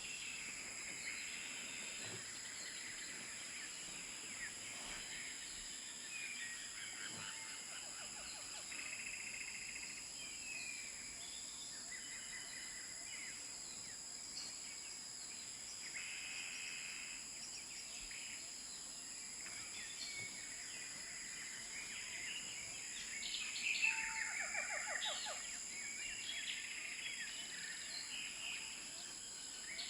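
Several birds chirping and calling over a steady, high-pitched insect drone. The bird calls get busier and louder about three quarters of the way through, with quick falling trills.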